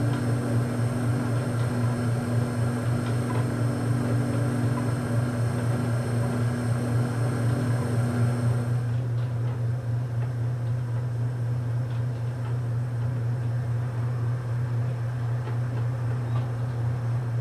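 Telescope-mirror grinding machine running: an electric motor driving a train of V-belts and pulleys, a steady low hum with an even pulsing beat. About nine seconds in, the higher tones and hiss drop away and the hum carries on alone.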